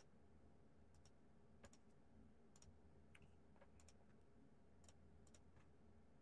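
Faint, irregular clicks of laptop keys being pressed, about a dozen, several in quick pairs, over a low steady hum.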